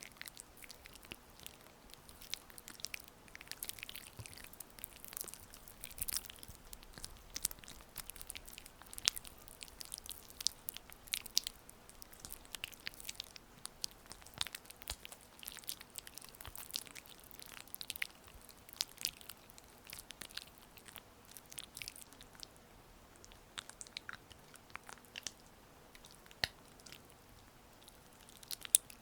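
Oiled hands massaging skin, making soft, irregular wet sticky clicks and smacks.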